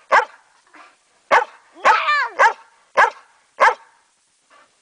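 Dog barking at close range, about six sharp barks half a second or so apart, with a longer wavering yelp among them about two seconds in. The barking stops after nearly four seconds.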